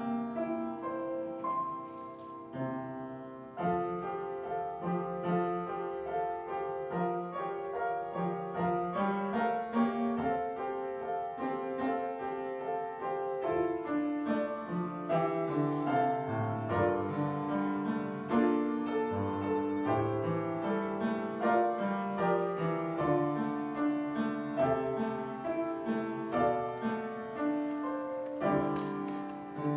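Solo piano playing a slow, chordal prelude, with a moving bass line under sustained chords.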